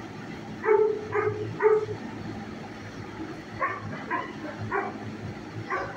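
Dogs barking in short, sharp barks: three quick barks about a second in, a run of four a little past the middle, and one more near the end.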